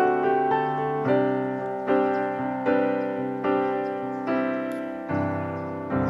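Background piano music: gentle notes and chords struck about once a second, each one fading before the next.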